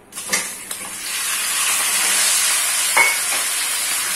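Raw chicken pieces hitting hot oil in a heavy-bottomed steel pan and sizzling at once, the frying hiss building up within about a second and then holding steady. A few sharp knocks against the pan, the loudest about a third of a second in and again about three seconds in, as the pieces are tipped in and stirred with a spatula.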